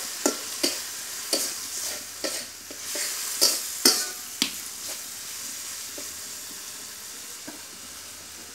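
Metal spatula scraping and knocking against a metal karahi as tomatoes and onions are stirred while frying in oil, over a steady sizzle. The scraping stops about four and a half seconds in, leaving the sizzle alone.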